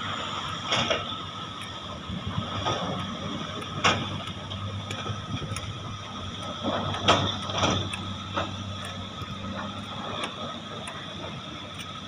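Several hydraulic excavators working together: steady diesel engine running with a higher whine over it, broken by sharp clanks and knocks from the machines, the loudest about seven seconds in.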